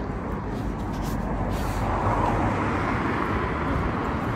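Cars driving past on a wet road: a steady wash of tyre and engine noise with a low rumble underneath.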